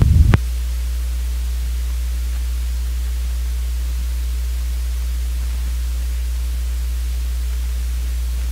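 Steady electrical mains hum from the sound system: a constant low buzz with faint higher overtones, unchanging in level. It begins when the louder sound before it cuts off abruptly, about a third of a second in.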